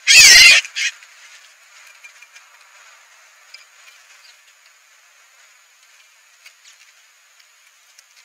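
Short, loud scuffle of birds at a seed feeder in the first second, harsh flapping and squawking as a female northern cardinal lunges at a house sparrow, with a smaller burst right after. Then only faint, scattered chips and clicks over a steady faint high hiss.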